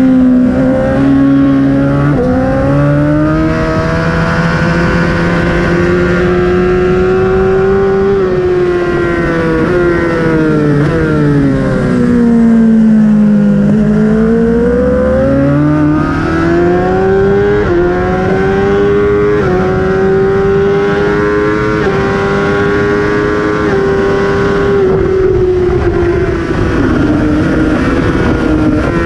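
BMW S1000RR inline-four engine at race pace, heard from on board. It revs hard and falls off through the corners, dropping lowest about 13 seconds in, and its pitch jumps in sudden steps at the quick gear changes.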